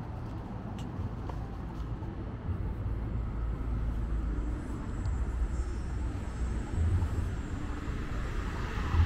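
Downtown street traffic: a steady, deep rumble of cars passing, growing a little louder about two and a half seconds in, with a few faint clicks.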